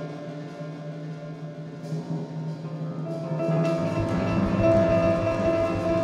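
Runway show music: sustained droning tones. A higher held note enters about three seconds in, and a deep pulsing beat starts about four seconds in.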